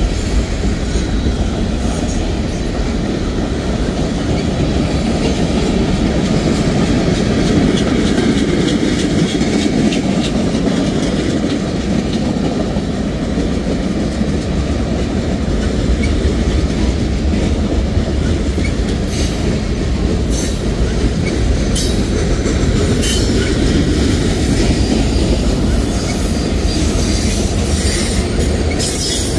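Norfolk Southern freight train's cars rolling past: a steady, loud rumble and clatter of steel wheels on the rails, with scattered sharp metallic clicks in the second half.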